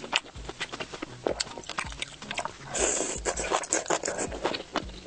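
Close-miked chewing and wet mouth clicks of a person eating, with a louder noisy burst about three seconds in.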